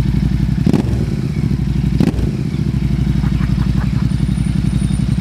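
Royal Enfield Super Meteor 650's parallel-twin engine idling through an aftermarket chrome exhaust, a steady, evenly pulsing low exhaust note. Two short louder pulses come under a second and about two seconds in.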